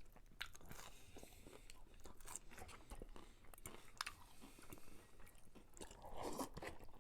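Faint, close-up chewing and mouth clicks of someone eating cheesy ramen noodles.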